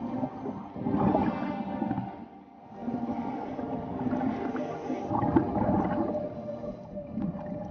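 Music bed of sustained, drawn-out tones with a watery, gurgling texture underneath, dipping briefly about two and a half seconds in.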